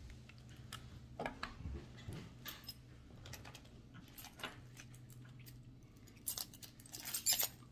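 Keys on a key ring jangling and clicking as they are handled, with small sharp clicks throughout and a brighter flurry of jingles about six seconds in.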